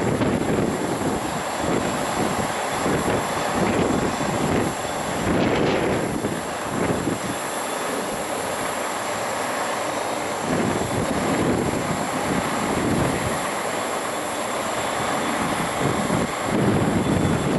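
Airliner jet engines roaring on the runway, mixed with gusty wind buffeting the microphone in uneven low rumbles.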